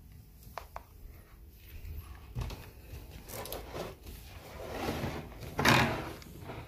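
Handling noise of a plastic Brother P-touch handheld label maker: a couple of small key clicks early, then scuffing and rubbing as the device is pressed and shifted in the hands, loudest shortly before the end.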